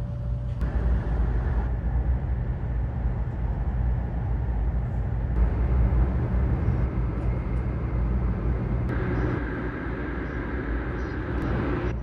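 Cabin noise of a 500 series Shinkansen running at speed: a steady, loud low rumble with rushing noise over it, shifting abruptly in tone several times.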